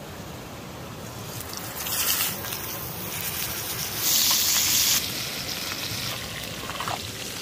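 T-bone steak sizzling in hot oil in a cast-iron skillet over a wood fire, with butter foaming around it as it is basted. The sizzle swells sharply about two seconds in and is loudest for about a second from around four seconds in.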